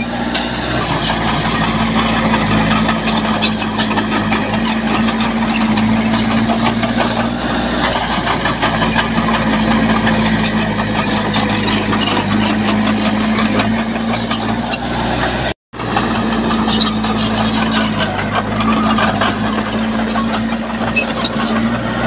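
Diesel engine of heavy earthmoving machinery running steadily, with a clatter of noise over it. The sound cuts out completely for a split second about two-thirds of the way through, then resumes.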